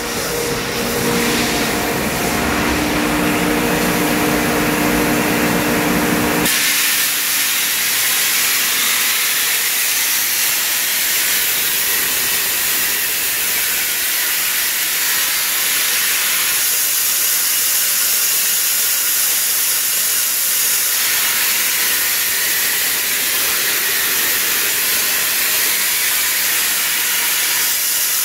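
Waterjet cutting machine under high pressure. At first a steady hum with a few held tones, then about six seconds in the valve opens and the water jet comes on with a sudden, loud, steady hiss that carries on.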